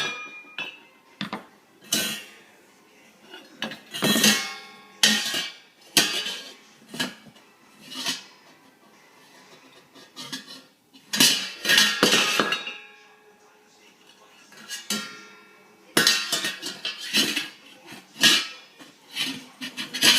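Metal kitchenware such as pots, pans and utensils being banged and clattered together in irregular bursts, with short metallic ringing after the hits.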